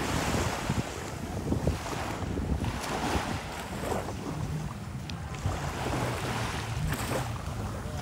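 Ocean surf breaking and washing up the beach in repeated surges, with gusty wind rumbling on the microphone.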